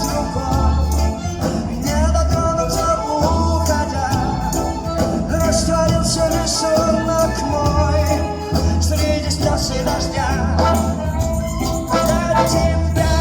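Live band playing a pop song: a steady beat with a strong bass line, percussion and a melodic line on top.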